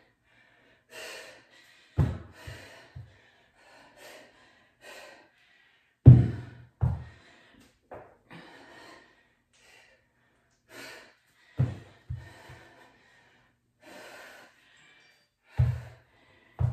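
A woman's hard breathing under exertion, short sharp breaths every second or two, with loud dull thuds on the rubber gym floor every few seconds, often two close together, as she drops into a plank on a kettlebell and comes back up.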